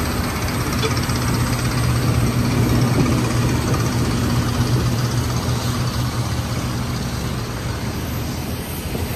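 Steady mechanical hum with a rushing noise and a faint high whine, from airport apron machinery around a parked Boeing 737-800.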